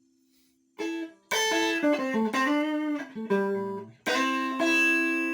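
Electric guitar played through a high-band compressor effect: a short run of single notes starting about a second in, then a chord struck near the end that rings on.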